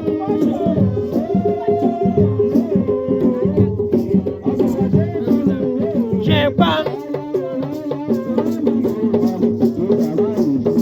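Background music with a steady beat, shaker-like percussion and a melody, with some singing.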